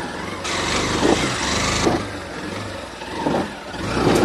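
Honda CB Unicorn 160's single-cylinder engine running in first gear as the motorcycle climbs a rocky track, its pitch rising and falling. A burst of hiss comes in about half a second in and lasts about a second and a half.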